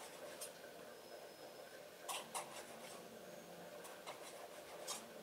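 Faint scratches and taps of a stylus writing on a tablet screen: a handful of short strokes, grouped about two seconds in and again near the end, over quiet room tone.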